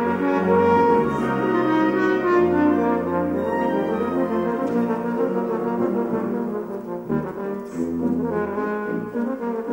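French horn playing a solo line in sustained notes, accompanied by a concert wind band with low bass notes underneath.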